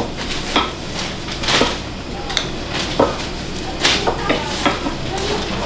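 Flat metal filling spatula clinking and scraping against a ceramic plate while leek dumplings are filled by hand: a string of sharp, irregular clinks, a few briefly ringing, over a steady background hum.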